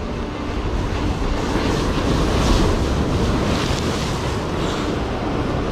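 Sea surf breaking and washing over the boulders of a rock breakwater, swelling loudest around the middle, with wind buffeting the microphone.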